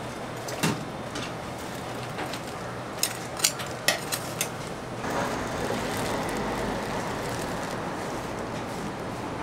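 Metal tongs clicking against each other and against fried pieces several times, over a steady hiss that gets louder about five seconds in.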